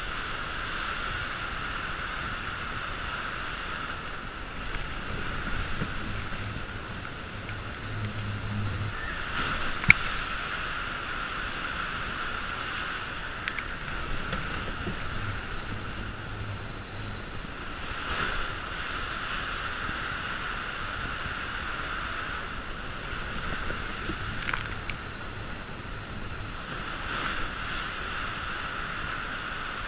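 Rushing water and a four-person raft sliding fast down a water coaster's slide, a steady wash of noise through enclosed tube and open sections. A single sharp knock comes about ten seconds in.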